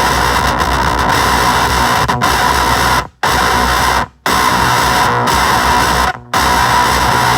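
Electric guitar played through an Avedissian octave fuzz pedal: a thick, noisy, heavily fuzzed tone that cuts off abruptly three times, about three, four and six seconds in.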